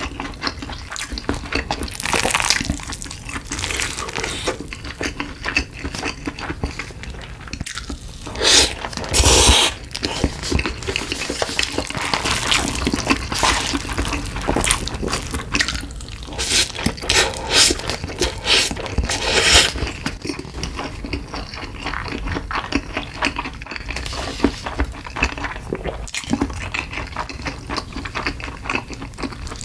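Close-miked eating: wet chewing and slurping of instant cup ramen noodles, with clicks of the mouth and chopsticks, and several louder slurps in the middle.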